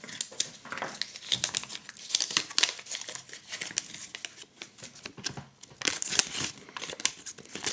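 Thin paper instruction leaflet being unfolded and handled, crinkling and rustling, with short clicks and taps throughout.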